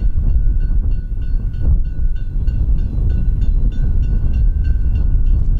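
Narrow-gauge steam locomotive working a train heard from a distance, its exhaust beating at about four a second over a heavy low rumble.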